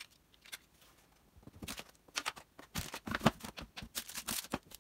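Camera gear and packaging being handled and moved about on a tabletop: a quick run of rustles, clicks and light knocks that starts about a second and a half in and grows busier toward the end.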